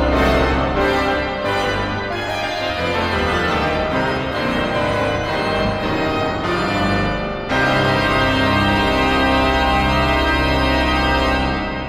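Instrumental music: sustained organ-like keyboard chords over a held low bass. The chord changes abruptly about seven and a half seconds in, and the music begins to fade out at the very end.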